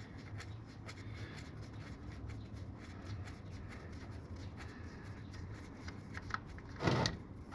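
Faint rustling and small clicks of a Harley-Davidson Softail's threaded transmission drain plug being spun out by hand, with a brief louder sound near the end.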